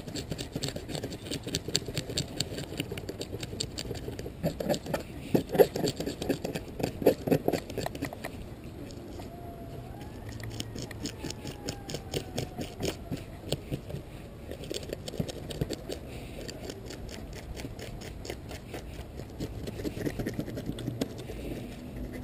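Handheld serrated fish scaler scraping the scales off a whole porgy (scup), tail toward head: quick repeated rasping strokes, stronger for the first several seconds and lighter after.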